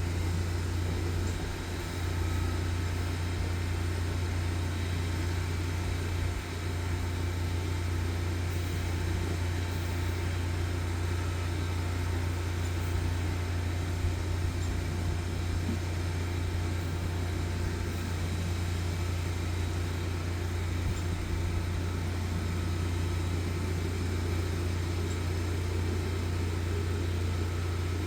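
Engine of a high-pressure sewer jetter running steadily at a constant speed, a low, even hum.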